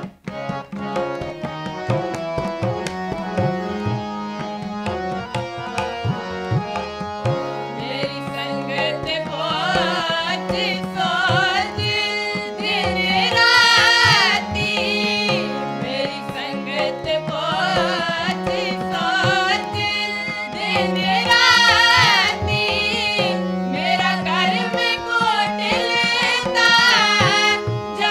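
Sikh kirtan: two harmoniums playing sustained chords with tabla keeping a steady rhythm. From about eight seconds in, several voices join, singing simran together.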